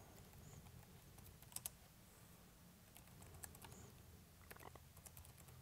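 Faint typing on a computer keyboard: scattered keystrokes, a few at a time, over a low background hum.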